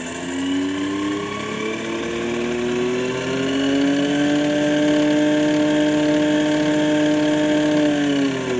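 Electric drive motor of a converted tractor revving up in neutral. Its whine rises in pitch over the first few seconds to about 2,900 rpm, holds steady, then starts to fall near the end.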